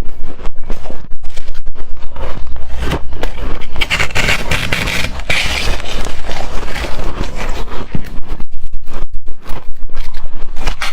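Close-miked crunching of hard, frosty shaved ice in a fast run of crunchy strokes, several a second, denser and brighter in the middle.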